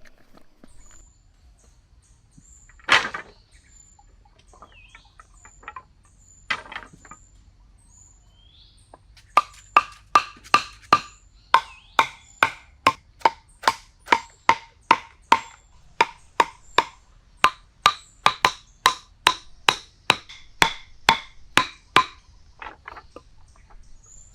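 A regular run of sharp, ringing knocks, about three a second for some twelve seconds, after two single knocks earlier.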